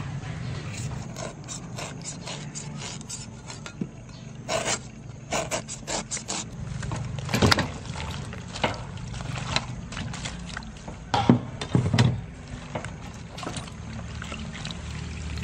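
A knife scraping the peel off a cucumber with short scratchy strokes, then vegetables being swished and rubbed by hand in a steel basin of water, with splashes and a few louder knocks against the basin. A steady low hum runs underneath.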